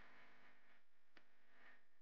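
Near silence: faint background hiss with one faint click a little past halfway.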